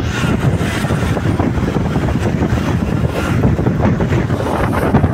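Steady rush of wind on the microphone over the running engine and road noise of a motorcycle riding along a paved road at speed.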